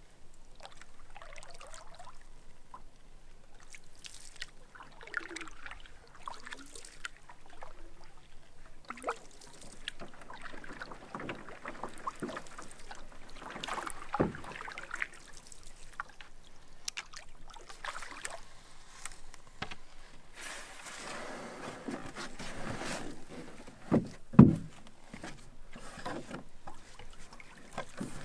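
Canoe paddles dipping and pulling through calm water, with drips and small splashes. Near the end, a couple of sharp knocks.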